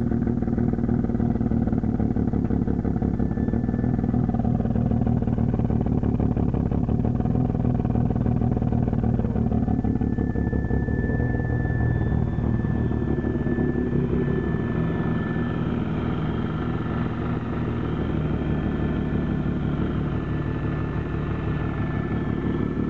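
Mazda RX-7 FD's twin-turbo 13B rotary engine idling roughly. It is a used JDM engine just swapped in, with its compression not yet tested.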